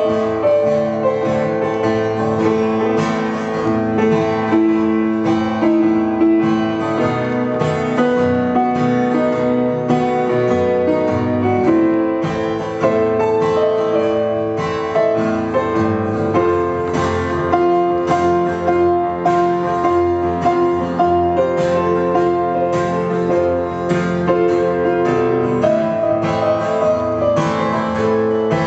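Live band playing an instrumental passage on piano and guitar, with no singing.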